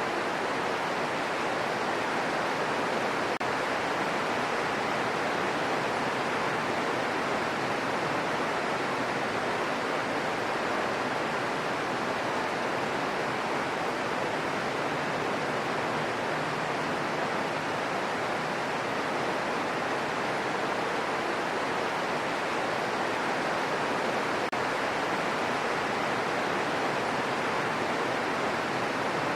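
Steady rain falling as an even, unbroken hiss with no separate drops or other sounds standing out.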